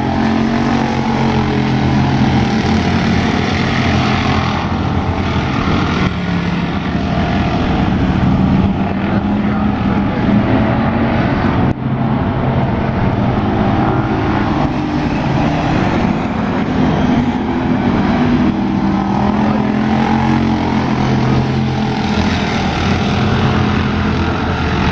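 A pack of street stock race cars lapping a dirt oval, their engines making a loud, continuous drone. The pitch rises and falls as the cars accelerate down the straights and lift for the turns.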